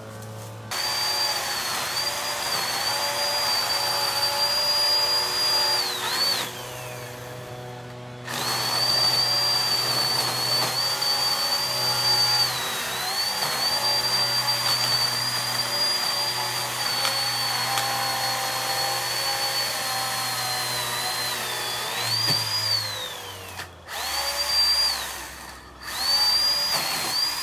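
Cordless electric saw cutting tree limbs: a high motor whine that sags in pitch as the blade bites into the wood. It is let off and winds down with a falling pitch about six seconds in and again near the end, then runs in a couple of short bursts.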